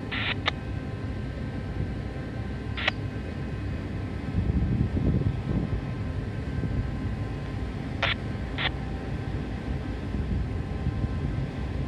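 Steady low rumble of a ship under way, with wind swelling briefly around the middle, and short gull cries a few times: just after the start, near three seconds and twice around eight seconds.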